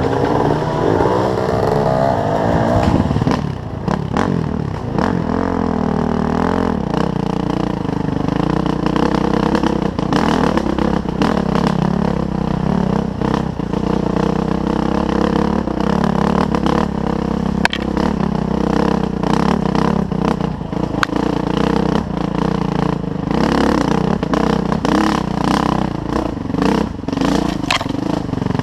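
Suzuki RM-Z450 dirt bike's single-cylinder four-stroke engine under way, its pitch rising and falling as the throttle is worked, with frequent clattering knocks from the bike over rough ground.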